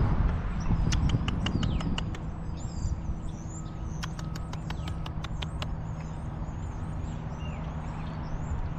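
Small birds chirping, with quick runs of sharp ticks about a second in and again around four to five seconds, over a steady low hum and outdoor rumble.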